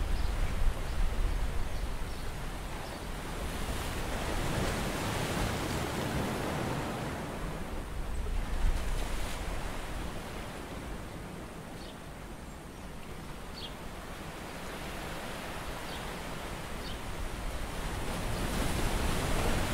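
Rushing noise of wind and sea water that swells for a few seconds, eases off, then builds again, with a few faint ticks.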